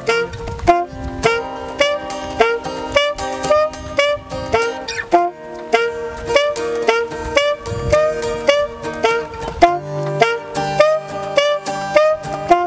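Saxophone and acoustic guitar duet in a jazzy style: the saxophone plays a melody line over steadily strummed guitar chords, about two a second.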